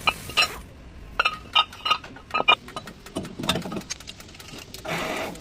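Metal tools and brake parts clinking against each other in a string of sharp, ringing knocks, with a short rushing noise near the end.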